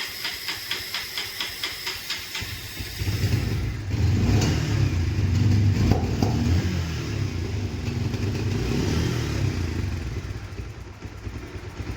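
Bajaj Pulsar 125 BS6 single-cylinder motorcycle engine with a fast ticking beat, then about two and a half seconds in it runs much louder and rough for several seconds before easing off near the end. It is misfiring after starting and dies on the throttle, which later proves to be caused by a closed-up spark plug gap.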